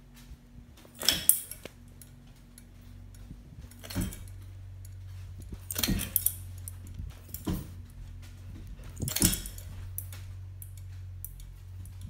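Encon chili-pepper ceiling fan running with a steady low motor hum, which swells a few seconds in and drops back near the end. Over the hum come about half a dozen sharp metallic clinks and jangles, a second or two apart.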